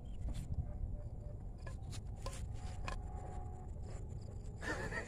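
Low steady rumble of wind on the microphone, with a few faint clicks and rustles.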